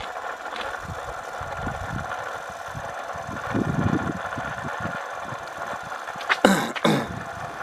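Brushed DC motor, its brush plate freshly repaired, running steadily off a solar panel in weak sun: an even whine with mechanical chatter. Two short loud noises about six and a half seconds in.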